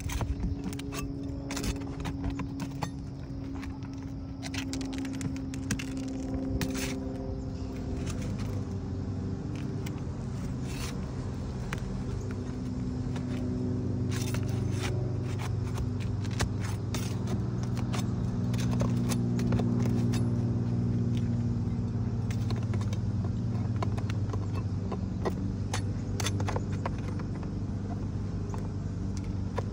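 A motor running steadily nearby, its hum drifting slowly in pitch and swelling through the second half, with scattered sharp clicks and scrapes from work on the roof.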